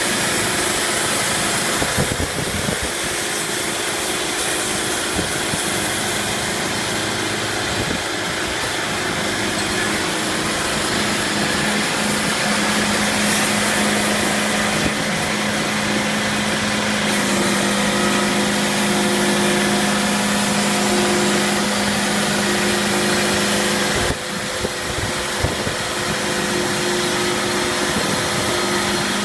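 Sawmill machinery running, a steady engine-like hum over a loud wash of mechanical noise. The hum shifts slightly in pitch about halfway through and drops out a few seconds before the end, leaving rougher, uneven noise.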